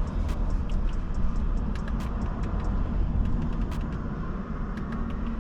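Steady low rumble of outdoor background noise with scattered light clicks.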